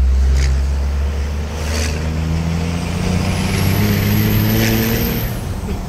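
1995 Dodge Ram's 12-valve Cummins 5.9 L inline-six turbo diesel heard from inside the cab, accelerating hard with its pitch climbing. A high whistle rises with the revs and cuts off suddenly near the end. The engine has just been fitted with upgraded valve springs to match a 3–4k governor spring kit.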